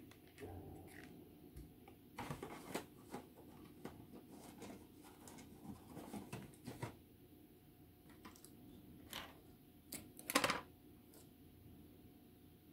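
Masking tape and plastic model-kit parts being handled: scattered light clicks, taps and rustles, with a short louder crackle about ten seconds in as a strip of masking tape is pulled and laid on.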